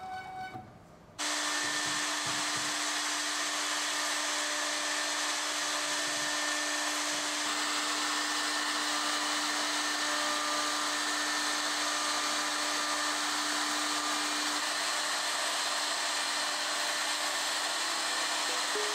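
Overhead router spindle with a bearing-guided profile bit running at speed and cutting the edge of a pine circle frame, a steady whine and cutting noise. It starts abruptly about a second in, after a brief drop, and runs steadily.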